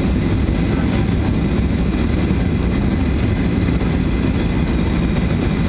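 Steady cabin noise inside a Boeing 737-300 on approach with flaps extended: a constant low rumble of its CFM56-3 engines and airflow, with a faint steady high whine above it.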